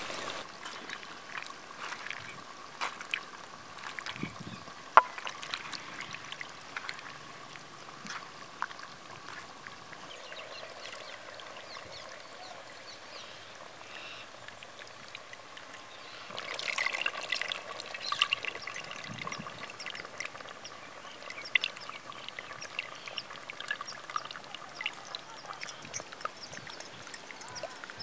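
Tamarind water pouring and trickling into a clay pot of fish curry, with scattered small splashes and clicks; it gets louder for a few seconds a little past the middle.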